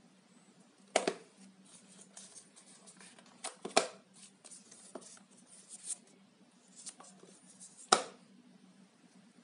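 Hands handling a small fitness-tracker box and its plastic parts: a string of sharp clicks and taps with light rustling. The loudest clicks come about a second in, near four seconds and about eight seconds in.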